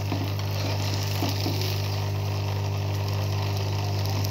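Egg-brushed aloo paratha frying in oil on a hot griddle, sizzling steadily. A loud, steady low hum runs underneath.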